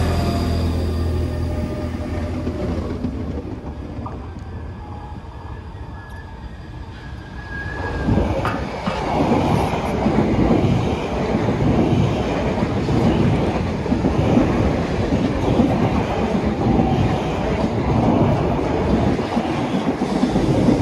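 Double-deck suburban electric train moving along the platform: a low steady hum at first, fading, then from about eight seconds in a loud, rapid clickety-clack of wheels over the rails as the train gets under way.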